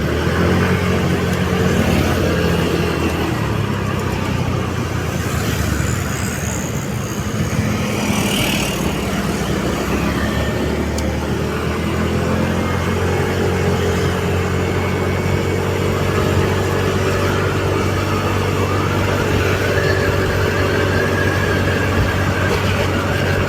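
Ambulance engine running steadily under way, with road noise; the engine note shifts slightly up and down as the speed changes.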